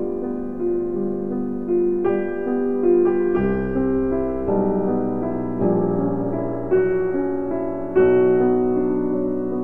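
Background piano music: a slow melody over held notes.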